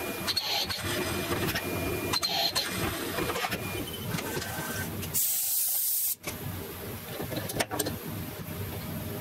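HAAS VF1 CNC vertical mill drilling stud holes in a cast-iron R33 brake rotor: the spindle and cut run steadily, with sharp cutting pulses about every two seconds. A short burst of loud hiss about five seconds in cuts off suddenly, and a sharp click follows a couple of seconds later.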